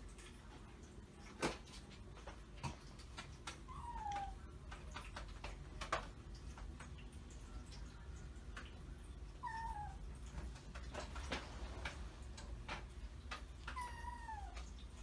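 Kitten mewing three times, each a short call falling in pitch, among scattered knocks and taps.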